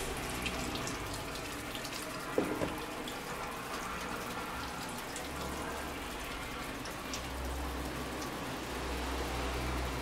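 Steady rain falling, an even hiss with scattered drips, and a short knock about two and a half seconds in.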